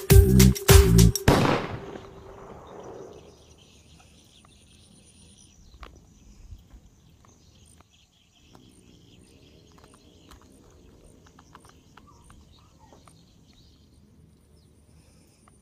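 Music with a strong beat that stops about a second and a half in and fades away. Then faint outdoor field ambience: a steady high insect drone with a thin regular high ticking and a few small clicks.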